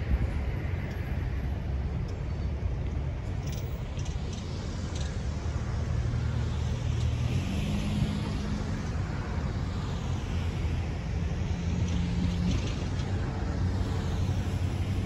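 Diesel engines of two EMD GP38-2 locomotives (16-cylinder two-stroke EMD 645s) running at low throttle as the train creeps forward, a steady low rumble whose engine note shifts slightly now and then.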